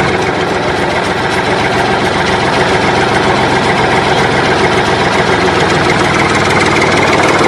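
Recorded sound of a heavy engine idling steadily and loudly, laid over a plastic toy loader.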